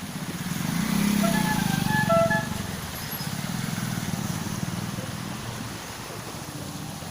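A motor vehicle passing close by on a flooded street: its engine rumble swells about a second in and fades after a couple of seconds, over a steady noise of flowing storm water.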